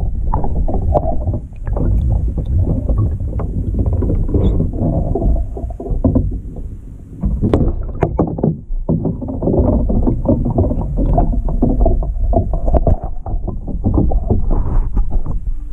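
Water sloshing and gurgling in a container around a submerged Nokia flip phone, a dense low churning noise with scattered small knocks and clicks.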